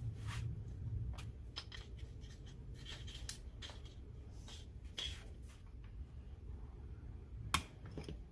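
Scattered light clicks and scrapes of small hard objects being handled, with one sharper click near the end, over a steady low hum.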